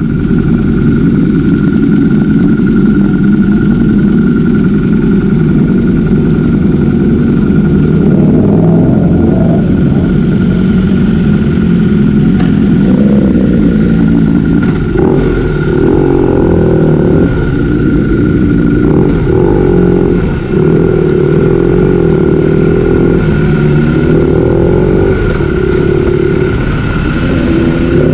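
Motorcycle engine running under way, close to the microphone; from about eight seconds in its note rises and falls as the rider accelerates and eases off.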